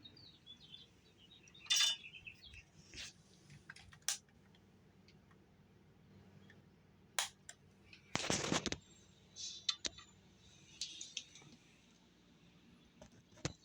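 Scattered small metallic clicks and clinks with a few short rustles, as treble hooks and split rings are fitted back onto a wooden lure. There is a longer scrape or rustle a little after the eighth second.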